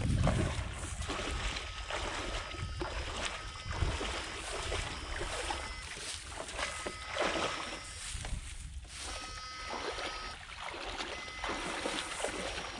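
Legs wading through shallow muddy water, an irregular slosh and splash with each stride. Faint high steady tones come and go over it.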